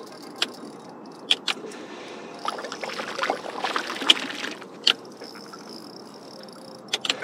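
Scattered sharp knocks and clicks over a steady wash of water and wind as a hooked bass is fought beside a bass boat and brought to the landing net.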